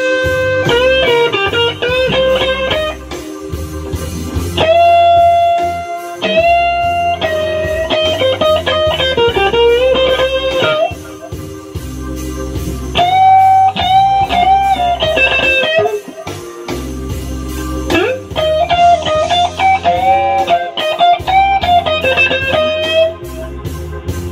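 Electric guitar playing a blues lead line of sustained, bent and vibrato notes, with a bass line underneath.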